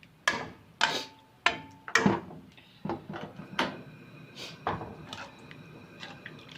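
Irregular knocks and clatter of a utensil against a pot of simmering beef curry, about eight or nine strokes, the loudest in the first two seconds, some with a brief metallic ring.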